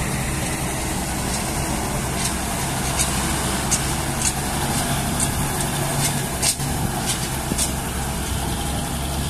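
Diesel truck engine running at low speed as a loaded cargo truck creeps past, a steady low hum. From about two seconds in, short sharp clicks are scattered through it.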